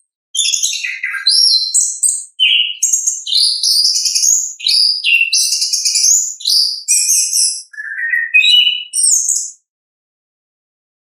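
Chestnut-capped thrush (anis kembang) singing a long, varied song of rapid high chirps, trills and whistles, with two brief breaks. It stops about a second and a half before the end.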